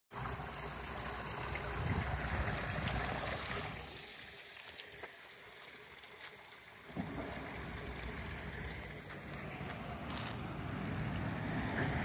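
Spring water trickling along a shallow concrete stream channel, a steady hiss, with wind rumbling on the microphone that drops away for a few seconds in the middle.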